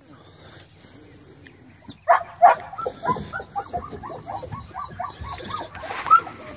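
A dog whining and yelping in a rapid run of short, high cries, about four or five a second, starting about two seconds in and ending with a louder cry near the end.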